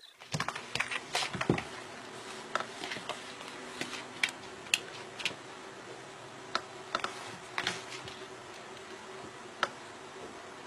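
A cat biting and chewing a rubber slipper, making irregular sharp clicks and taps, loudest in the first couple of seconds, over a steady low hum.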